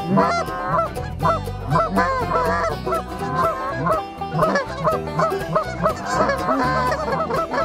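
A flock of Canada geese honking, many calls overlapping one another without a break.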